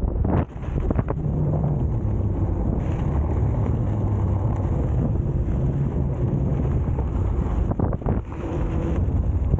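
Wind rushing over the microphone on a Leaperkim Veteran Patton electric unicycle riding a dirt track, over the low rumble of its knobby tyre rolling on the dirt. The noise is steady, with a brief drop about half a second in.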